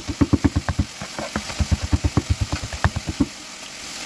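Knife rapidly chopping garlic on a cutting board, about seven quick chops a second, stopping a little past three seconds in. Chicken sizzles in a dry pan underneath, cooking in its own fat.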